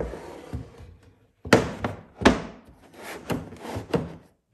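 Wooden doll bed being lifted and set down on the dollhouse's wooden floor: a thunk at the start, two sharper wooden knocks about a second and a half and two seconds in, then lighter knocks and shuffling near the end.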